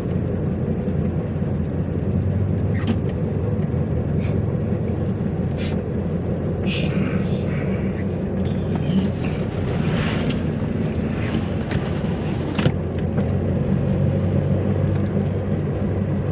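Car engine and road noise heard from inside the cabin while driving, a steady low hum, with a few short sharp ticks.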